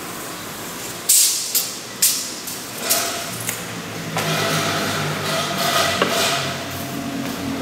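Four sharp bangs or knocks in the first three seconds, each dying away quickly, followed by a steadier sound with a held pitch.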